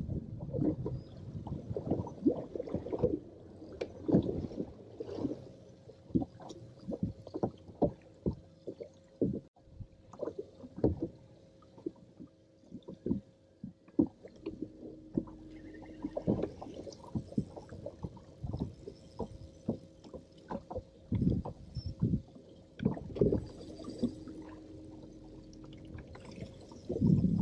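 Small waves slapping and knocking against the hull of a bass boat: a run of irregular low thumps, with a faint steady hum that comes and goes.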